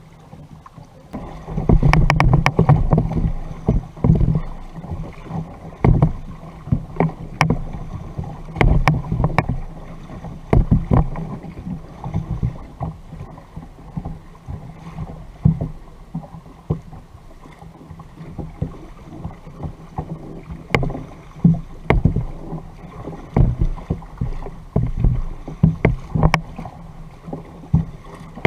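Water sloshing and splashing around a sit-on fishing kayak on the sea, with irregular sharp knocks and clicks against the hull.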